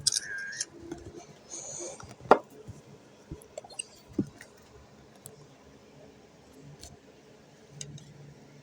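Scattered light clicks and knocks of small hard objects being handled, the sharpest about two seconds in, with a brief high-pitched cry at the very start.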